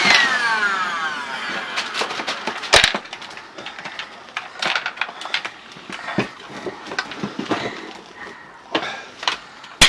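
A stick vacuum cleaner is switched off with a click, and its motor whine falls away over about a second and a half. Then come scattered light clicks and knocks, the sharpest about three seconds in.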